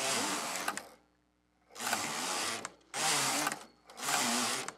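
Carriage of a flatbed knitting machine pushed back and forth across the needle bed, knitting a row on each pass: four rattling sweeps of under a second each, with a second's pause after the first.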